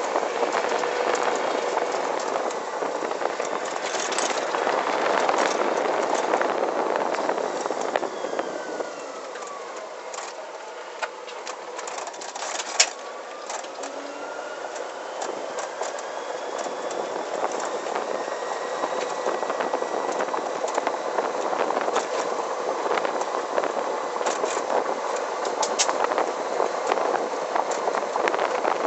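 Driving noise of an electric go-kart with a Motenergy ME0709 brushless motor and belt drive: a steady rush of tyre and wind noise with chassis rattles and clicks, one sharp click about halfway through. A faint motor whine slides down in pitch and then back up around the middle as the kart slows and speeds up again.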